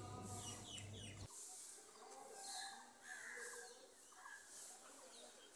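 Faint, scattered bird chirps over near silence.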